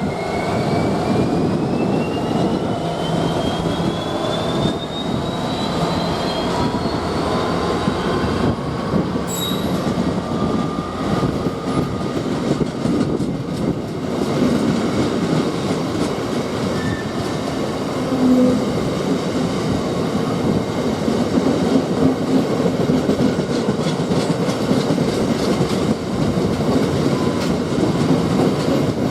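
A train running on the rails close by: a continuous heavy rumble of wheels on track, with a thin whine rising in pitch over the first several seconds.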